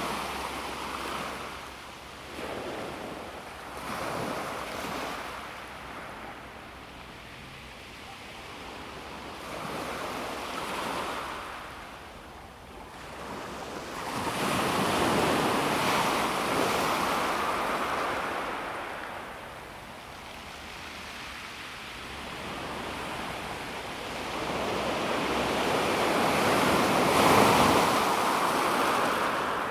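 Calm sea waves washing onto a pebble beach, swelling and receding in several surges every few seconds, the biggest near the end.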